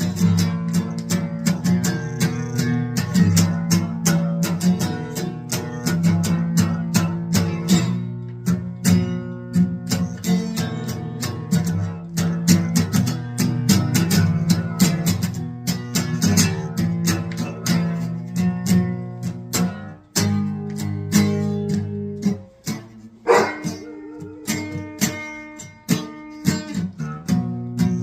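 Acoustic guitar being played: quick plucked and strummed notes over ringing low notes, with brief pauses about two-thirds of the way through.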